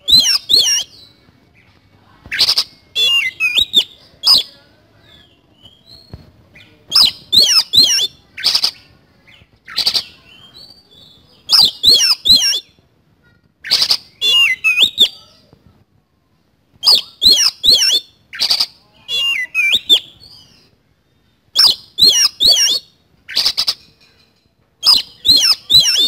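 Oriental magpie-robin (kacer) singing a loud, full song of harsh, rough notes. Short phrases of sharp strokes and quick up-and-down whistled glides come every couple of seconds, with brief pauses between them.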